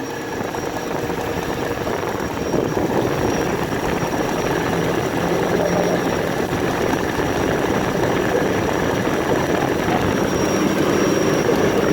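BMW N62B44 4.4-litre V8 running hot with a rapid ticking and knocking, growing louder about two seconds in. The owner says the noise appears only once the engine is warm, though the timing chain, water pump, valve stem seals, the well-known coolant pipe and the vacuum pump have all been replaced.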